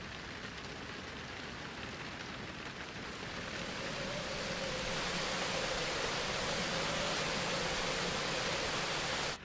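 Heavy rain pouring, an even hiss that swells louder about four seconds in. A faint steady hum sits under it in the second half, and the sound cuts off abruptly at the end.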